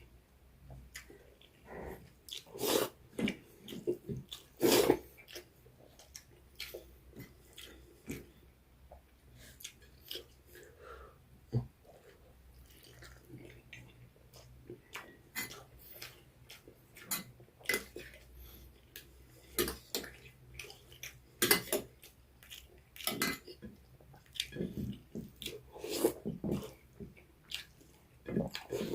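A person eating close to the microphone: irregular wet chewing and mouth smacks with small clicks, some louder bites now and then.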